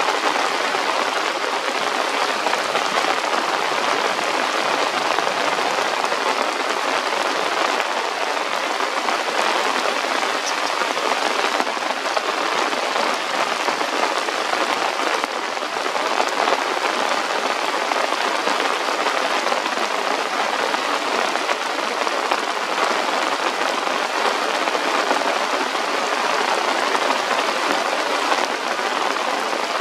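Steady, fairly loud rain falling on forest leaves, an even hiss with no pauses.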